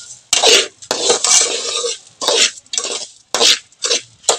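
Long metal spoon stirring and scraping dry roasted semolina and sugar in an aluminium pot, in a series of repeated scraping strokes.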